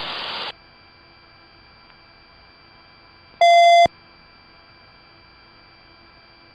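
A burst of radio hiss that cuts off about half a second in, then a faint steady hum. A little past halfway comes a single loud electronic beep lasting about half a second.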